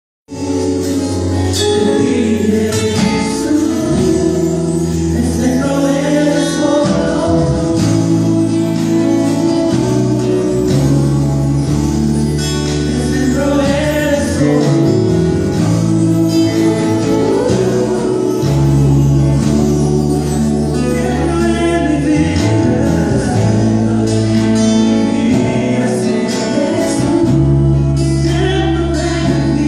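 A live band playing with singing over a sustained, steadily changing bass line, during a sound check.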